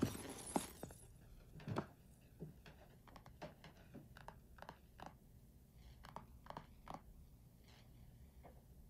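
A quiet room with scattered faint rustles and small clicks, and one slightly louder knock about two seconds in.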